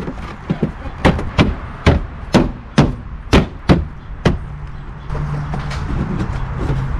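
Plastic cargo-area side trim panel of a 2018 Subaru Impreza being pushed and knocked into place by hand: a run of about eight sharp knocks spread over a few seconds. A low steady hum begins about five seconds in.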